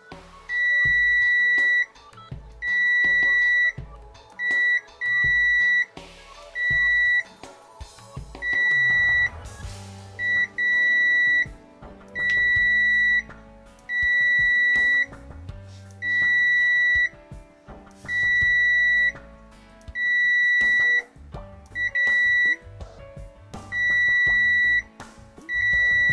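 Richmeter 777 multimeter's continuity buzzer beeping each time the test probe tips touch: about twenty steady high-pitched beeps of uneven length, each under about a second and a half, with short gaps between, as the meter reads a near-zero short.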